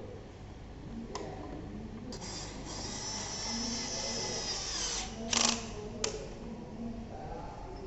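A small motor whirs for about three seconds, its pitch sliding down as it runs. A short, loud rasp follows, then a click.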